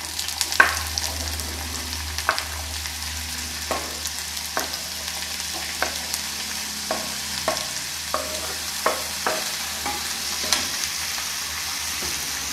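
Diced chayote frying in hot oil in a kadai: a steady sizzle, with about a dozen light knocks scattered through it as a knife scrapes pieces off a wooden board into the pan and a spatula stirs them. The raw vegetable is in its first sauté to take off the raw smell.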